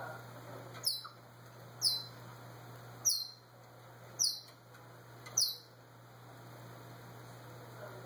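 African grey parrot giving five short, high whistles, each sliding quickly down in pitch, about a second apart, over a steady low hum.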